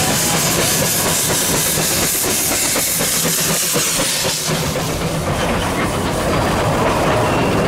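Narrow-gauge steam locomotive passing close by, hissing loudly with steam venting low at the front and a fast beat of chuffs. After about four and a half seconds the hiss drops away and the passenger carriages roll past with a rumble and wheel clatter on the rails.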